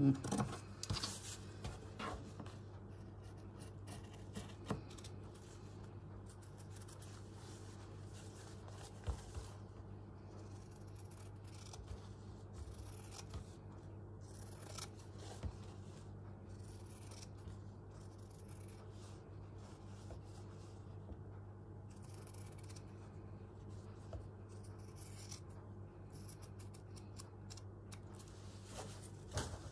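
Scissors cutting fabric in irregular runs of short snips with brief pauses between them, over a low steady hum.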